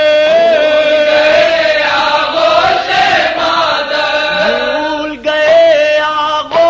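Male chanting of an Urdu noha lament, holding one long sustained note for about five seconds before a new phrase starts near the end.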